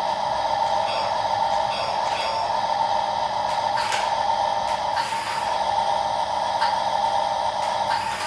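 Small electric motor of a toy excavator whining steadily, with a few light clicks.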